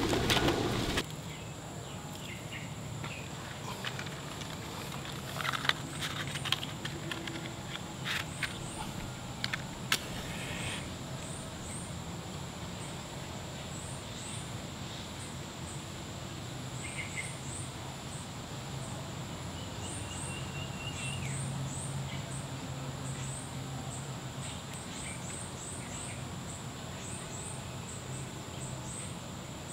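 Woodland ambience: a steady high-pitched drone with short bird chirps repeating throughout and a low hum underneath. In the first ten seconds, a few sharp clicks and snaps of dry sticks and twigs being laid in a stone fire ring.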